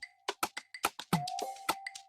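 Background hip-hop beat: sharp clicks and taps over a low kick, with a held synth tone, no vocals.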